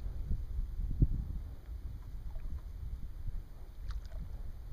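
Wind rumbling unevenly on the microphone on open water, with water lapping against the small boat and a short low bump about a second in.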